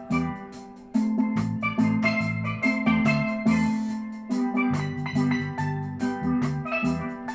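Upbeat background music with a steady beat, bright struck melody notes and a moving bass line.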